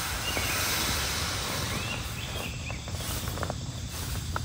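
Steady outdoor background hiss with a few faint, short high chirps and some light clicks.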